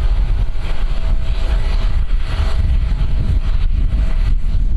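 Strong gusty wind buffeting the microphone with a heavy low rumble. About a second in, the faint steady whine of an approaching twin-jet airliner's engines comes in underneath.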